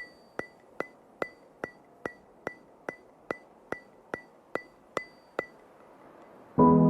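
Steady, evenly spaced clicks, each with a short bright ring, about two and a half a second, stopping after fourteen or so. Ambient piano music comes in near the end.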